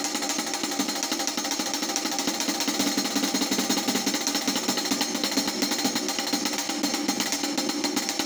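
Drumstick playing a fast, even stream of hits on a closed hi-hat, using a bodhrán-style pendulum swing of the wrist so that both ends of the stick strike on each pass, which falls into triplets.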